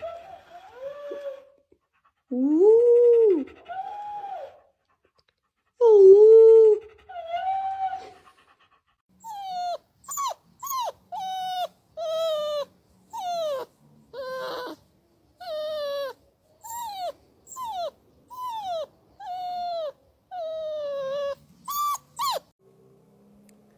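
German Shepherds vocalizing: a few short, arching, howl-like calls in the first part. From about nine seconds in, a German Shepherd puppy gives a long run of short yips that fall in pitch, about one a second.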